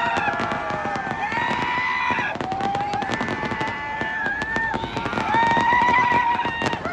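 Fireworks display going off: a rapid run of bangs and crackles. Over it, high held tones sound several times, each lasting a second or two.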